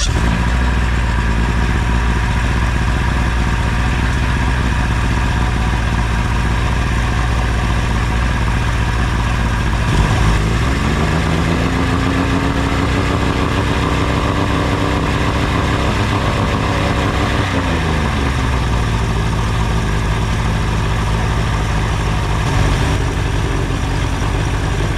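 Mariner 60 hp outboard motor starting abruptly and running at idle. About ten seconds in it is revved up, held at a higher speed for around six seconds, then eased back down to idle.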